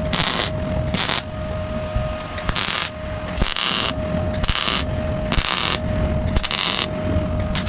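A welder laying a series of short tack or stitch welds on a sheet-steel patch in a car's trunk lid. It sounds as a string of brief bursts of arc noise, roughly one every half-second or so, with a faint steady tone in the pauses between them.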